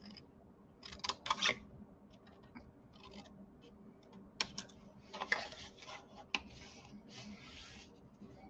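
Small scissors snipping black cardstock as its corners are trimmed: a few quiet snips about a second in and more around the middle, with soft rustling of the paper as the board is turned.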